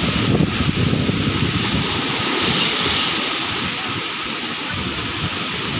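Storm wind gusting over the microphone with an uneven rumble, over the steady rush of heavy surf breaking on the beach.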